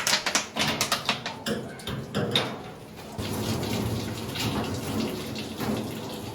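Water splashing on a dog being bathed, choppy for the first two seconds, then a steady running stream from about three seconds in as the dog is rinsed.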